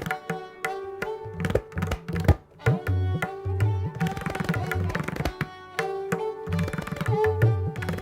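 Tabla played in Pashto taal, a seven-beat cycle: dense, quick strokes on the right-hand drum over deep bayan strokes that slide in pitch. A sustained bowed melody, the sarangi, holds the tune above the drums.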